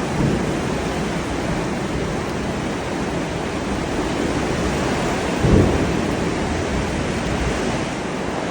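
Heavy rain pouring steadily, a dense hiss of water, with a short low rumble about five and a half seconds in.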